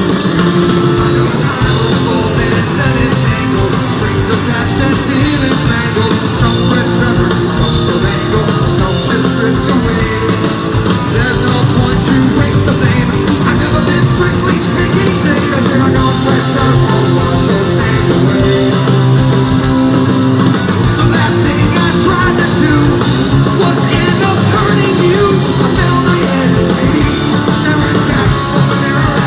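Punk rock band playing live and loud: distorted electric guitar, electric bass and drums, with the lead singer's vocals over them.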